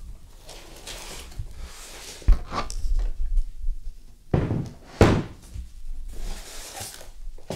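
Ultimaker Material Station being lifted out of its cardboard box and foam packing and set down on a table: scraping and rustling of packaging, with two thumps about two and five seconds in.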